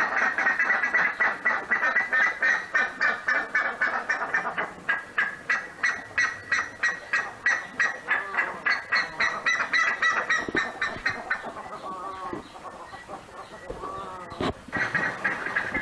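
Buff-necked ibis calling: a fast run of loud honking notes, about three or four a second, that slackens about two-thirds of the way through and picks up again near the end. A single sharp knock comes shortly before the calls return.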